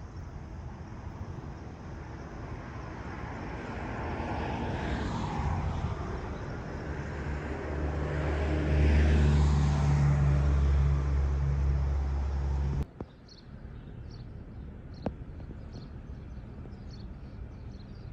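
Engine noise of a passing vehicle, swelling and fading with a gliding pitch, then a deep steady engine hum that cuts off suddenly about 13 s in, leaving a quieter background with faint high chirps.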